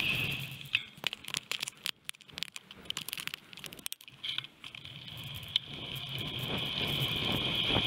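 Wind noise on a bike-mounted action camera's microphone while cycling. It fades away about half a second in, leaving a lull of scattered sharp clicks and rattles, then builds back up over the last few seconds as the bike picks up speed.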